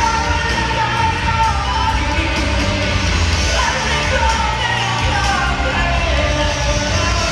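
Live rock band playing loudly in a large arena, heard from the audience: electric guitar over bass and drums, with a high singing voice.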